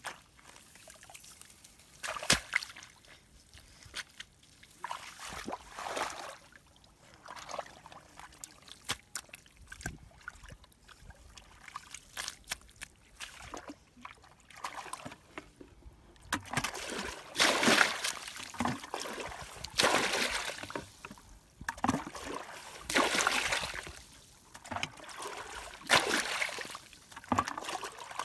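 Splashing and sloshing of shallow muddy water as a person works in it with hands and a plastic bucket, with water trickling. The splashes come in irregular bursts and grow louder and more frequent about halfway through.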